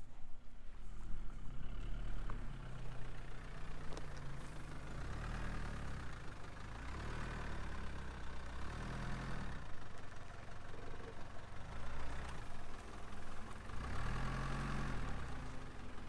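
A van's engine idling, a steady low rumble that swells a little now and then.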